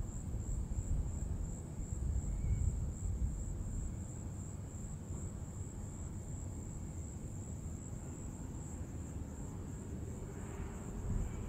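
A steady, high-pitched insect chorus over the low rumble of wind buffeting the microphone.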